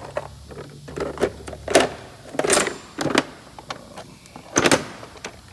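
Sockets and tool cases knocking and clattering as they are handled in a metal toolbox drawer, with a handful of sharp knocks over a steady low hum.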